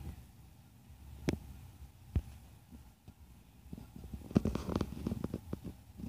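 Low road rumble of a car in motion, heard from inside the cabin, with sharp knocks about one and two seconds in and a quick run of clicks and knocks in the last two seconds.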